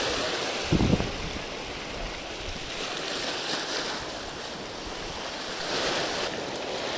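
Sea waves washing and breaking over shoreline rocks, a steady rushing hiss that swells near the end. There is a brief low thump about a second in.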